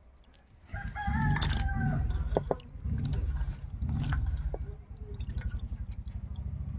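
A rooster crows once, a held call about a second in, over a low rumbling noise. There are light wet clicks and drips from fish pieces being rubbed and rinsed in a plate of water.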